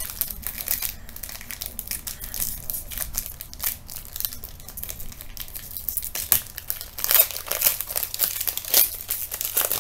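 Clear plastic wrapping being crinkled and torn open by hand to get at a set of football trading cards: a busy, irregular crackle, loudest about seven seconds in.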